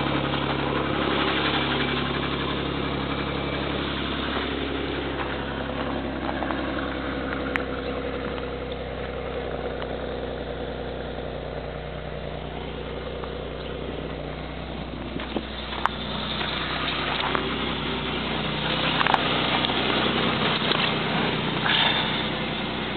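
1989 Pontiac Grand Prix's 3.1-litre V6 idling steadily while still cold, just after a cold start. A few short knocks sound in the second half.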